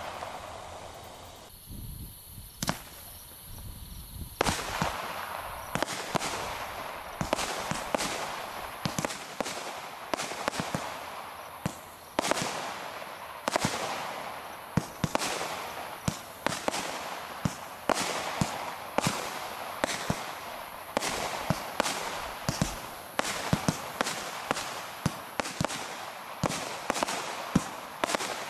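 100-shot Colourful Glitter multishot firework cake firing in rapid succession, about two shots a second, each shot a sharp report. The shots start about four seconds in, after a short lull.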